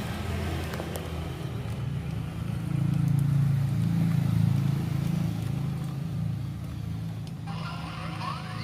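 Diesel engine of heavy construction machinery running, rising in load a few seconds in and then settling back. A higher rising whine comes in near the end.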